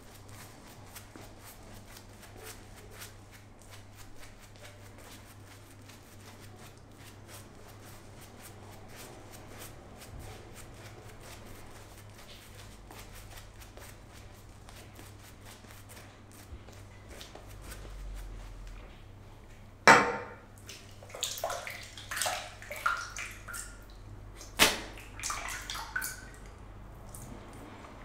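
A shaving brush working lather over the face, heard as a faint, fine crackling of bristles and foam on skin. About two-thirds of the way in there is a sudden sharp knock, followed by several louder, irregular handling noises.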